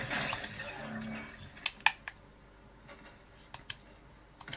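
Mobile game sound from Fortnite on the phone for about a second and a half, then a few sharp isolated clicks: three in quick succession, then more near the end.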